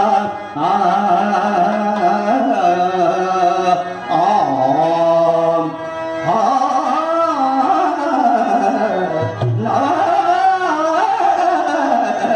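A man singing a Telugu stage-drama verse in long, drawn-out Carnatic-style phrases through a microphone, with musical accompaniment.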